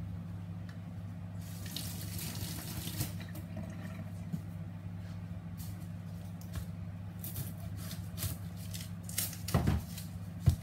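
A knife peeling onions over a steel kitchen sink: dry onion skin crackling and the blade scraping, with scattered small clicks over a steady low hum. Near the end come a few sharp knocks.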